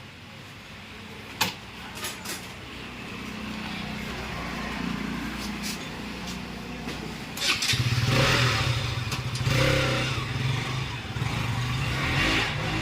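KTM motorcycle's single-cylinder engine: a few light clicks, then the engine starts about halfway through and runs.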